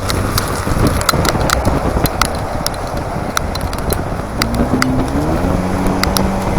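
Wind and road noise rushing through an open-top Daihatsu Copen at expressway speed, with many sharp ticks scattered throughout. A low steady hum joins in the last two seconds or so.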